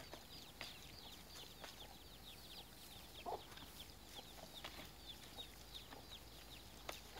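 Faint, rapid high chirping of birds, with one short lower call a little over three seconds in and a few light clicks.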